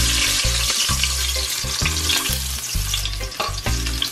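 Ginger and garlic sizzling in hot oil in a stainless steel pan, with a metal spoon stirring and clicking against the pan. It is the sound of the garlic roasting in the oil before the curry is burned in.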